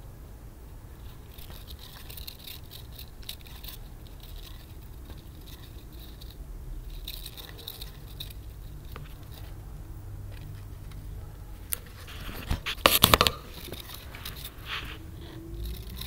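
A hamster scrabbling inside a plastic exercise wheel: scratching and light patter of claws on the plastic, with a louder burst of clattering about thirteen seconds in.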